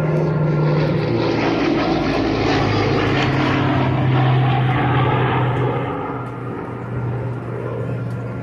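Large multi-engine propeller aircraft flying a low pass: a loud engine and propeller drone that swells, drops in pitch as the plane goes by, and fades after about six seconds.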